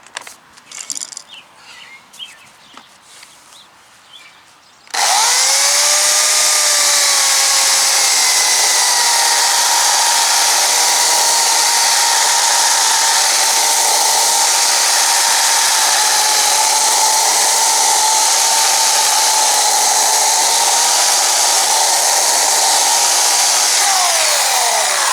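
Portland 14-inch electric chainsaw switched on about five seconds in, its motor spinning up and running steadily as it cuts into wood with a freshly resharpened chain, then winding down near the end. Light handling clicks come before it starts.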